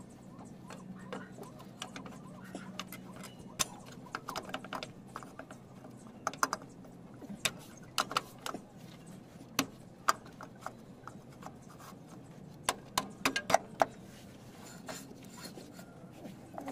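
Scattered sharp metallic clinks and knocks as a rear drum-brake drum is slid over the brake shoes and handled on the wheel hub, with a quick cluster of knocks near the end.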